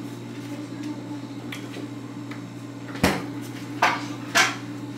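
Three sharp knocks of kitchen things being handled, such as a cupboard door or dishes set down, the first about three seconds in and the other two within the next second and a half, over a steady low hum.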